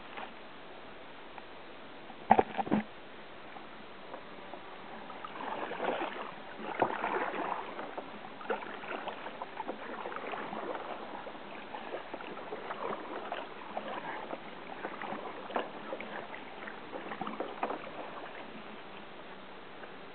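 Kayak paddle strokes: the blades dip and pull through the water in irregular splashes about once a second, with a couple of sharp knocks about two seconds in.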